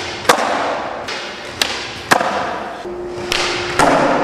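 Skateboard tricks on a concrete floor: several sharp cracks of the tail popping and the board landing, with wheels rolling in between.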